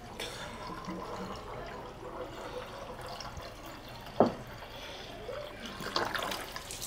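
Coolant water poured from a plastic bottle into a generator radiator's filler neck, a steady trickling stream, with one sharp knock about four seconds in.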